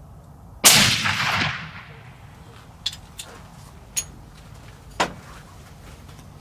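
A single suppressed .300 Win Mag rifle shot, sudden and loud about half a second in, fading away over about a second. A few short, sharp clicks follow over the next few seconds.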